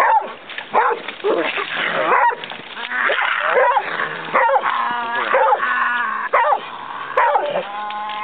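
Trigg hound barking over and over in quick, short barks, then giving a few longer drawn-out calls in the second half.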